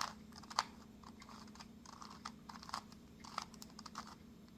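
2x2 Rubik's cube being turned through an OLL algorithm: a quick, irregular run of light plastic clicks as the layers are twisted.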